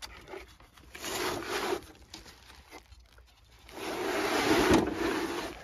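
Plastic vapour-barrier sheeting crinkling and scraping as an evaporator coil sitting in its drain pan is dragged across it, in two pulls: a short one about a second in and a longer, louder one near the end.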